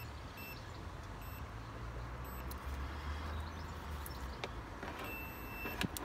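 Multimeter continuity beeper testing an ignition coil pack: a short high beep near the start, then a steady beep of just under a second near the end, showing the coil has continuity. A few clicks from the probes and a steady low rumble run underneath.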